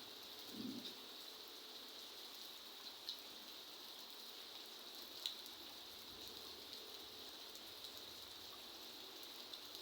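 Steady, faint rain patter with a few sharp single drip ticks, the loudest about five seconds in. A brief low sound about half a second in.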